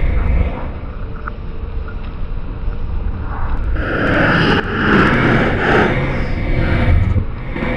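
Low, steady rumbling drone of dark ambient sound design. About four seconds in a louder, rough passage swells for some three seconds, then falls back.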